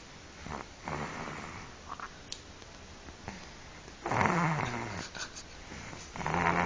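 Snoring during sleep: a soft snore about a second in, then two louder snores about four and six seconds in, each with a hum that slides down in pitch.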